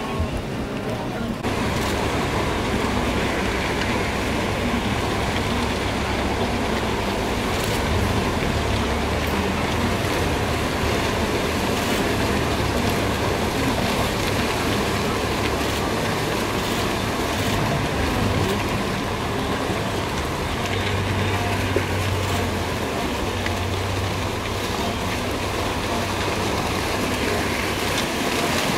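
Wildebeest herd crossing a river: continuous splashing and churning water as the animals leap in and swim across, over a steady low rumble.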